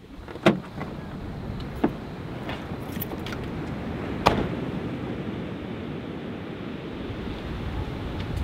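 Van door sounds over steady outdoor wind and surf noise: a sharp metallic click about half a second in, another just before two seconds, and a sharp knock a little after four seconds as the door is opened and someone steps out.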